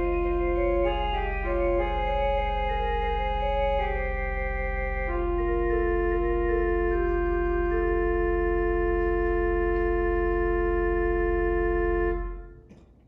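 Organ playing sustained chords, moving through several changes and then holding a long final chord over a steady bass, which is released shortly before the end.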